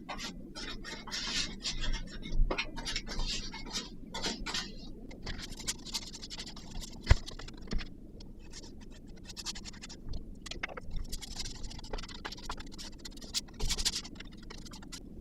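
Irregular scratching and scraping with scattered sharp knocks and clicks, the sharpest knock about seven seconds in.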